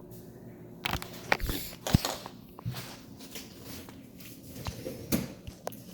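A small child eating cereal: chewing and crunching mixed with several sharp clicks and knocks. The knocks cluster about one to two seconds in, the loudest near two seconds, with a few more later.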